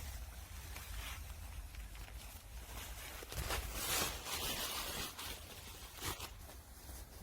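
Nylon tent fabric being handled: rustling and short zip-like sweeps, the loudest about three and a half to four and a half seconds in, over a steady low rumble.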